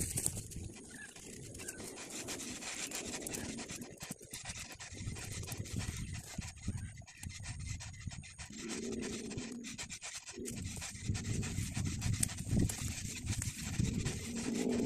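Heavy, panting breaths of a person straining to dig a tree's root ball out of hard, compacted rice-field soil, with some scraping at the soil.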